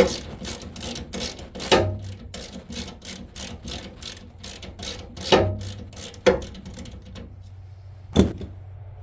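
Ratchet wrench clicking steadily, about four or five clicks a second, as a snowblower auger shear bolt is turned out, with a few louder metal knocks in between; the clicking stops near the end.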